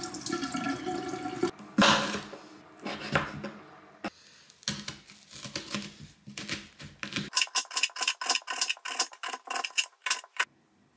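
Tap water running into a steel sink as a potato is rinsed under it, then a kitchen knife cutting an onion on a plastic cutting board. In the second half the knife strokes come as quick, regular clicks, about four or five a second.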